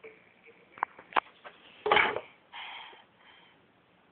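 Plastic clock radio being handled and its buttons pressed by a toddler: a few sharp clicks and knocks, with a louder thump about two seconds in.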